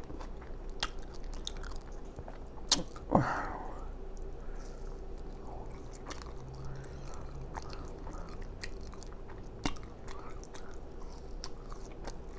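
A person chewing food with the mouth close to the microphone, with scattered wet smacks and clicks. One louder smack comes about three seconds in.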